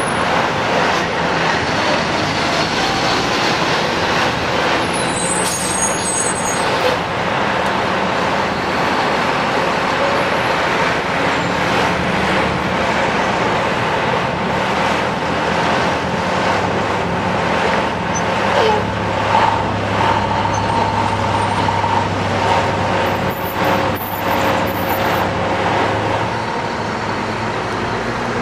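Steady din of heavy vehicle engines and road traffic, with a fire truck's diesel engine running. A deeper engine drone strengthens about two-thirds of the way through.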